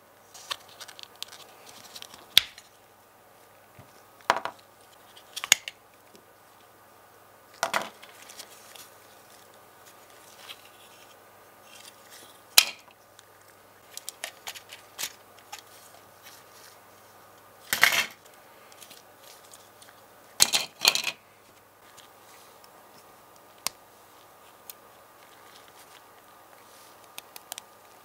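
Small plastic and metal parts of a diecast model car being handled and pried apart by gloved hands: scattered clicks, snaps and short rustles at irregular intervals. The loudest come about halfway through and as a pair a little later.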